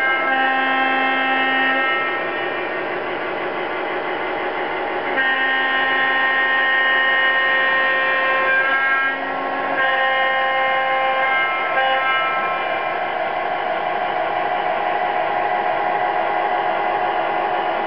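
Model diesel locomotive's electronic sound-system horn blowing in blasts over the steady rumble of O scale freight cars rolling on the track. One blast ends about two seconds in, a long one sounds from about five to ten seconds in, then two shorter toots follow, after which only the rolling rumble goes on.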